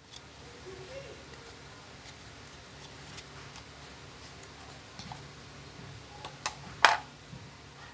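Hard plastic dust box and fittings of a Bosch GSS 18V-LI orbital sander being handled, with small scattered clicks over a faint steady hum, then a sharp plastic snap near the end, the sound of a part clicking into place.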